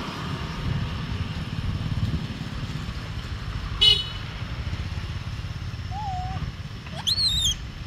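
Steady low outdoor rumble. About four seconds in there is a brief, sharp high toot, and near the end a high, wavering squeal lasting about half a second.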